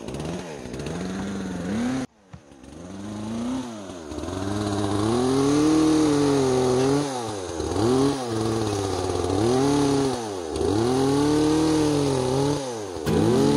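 Two-stroke chainsaw cutting up a downed treetop, revving up and dropping back again and again, its pitch rising and falling every second or two. It cuts out abruptly about two seconds in, then builds back up.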